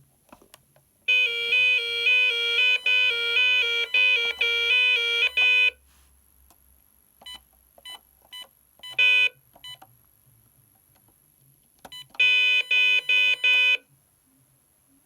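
DA Systems Abacus 6P intruder alarm panel sounding electronic beeps. A run of fast-alternating tones lasts about four and a half seconds, a few short single beeps follow, and a shorter burst of alternating tones comes near the end.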